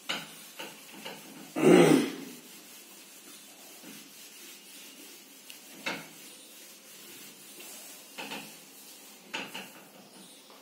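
Whiteboard duster wiping marker writing off a whiteboard in separate rubbing swishes, the loudest about two seconds in.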